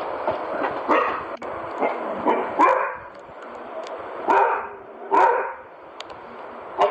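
Ridgeback dog barking, about six single barks with uneven gaps between them, over a steady background hiss.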